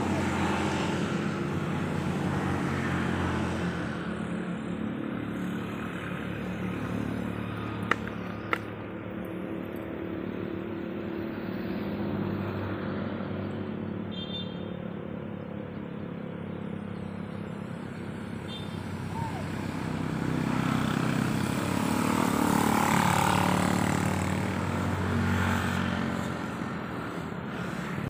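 A low engine drone from passing motor vehicles that swells louder twice, most strongly a few seconds before the end. Two sharp clicks come about eight seconds in.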